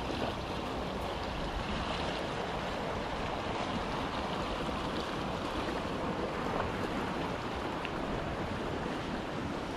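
Muddy storm runoff rushing along a shallow channel through a grassy yard: a steady rushing of water.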